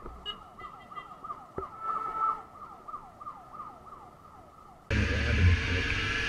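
A distant emergency-vehicle siren yelping in repeated falling sweeps, about three a second. About five seconds in, it cuts abruptly to the loud, steady noise of a motorcycle riding, engine rumble and wind.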